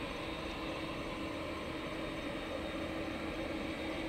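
Boeing 787's twin jet engines running at taxi power as the airliner rolls toward the runway: a steady drone with one held tone.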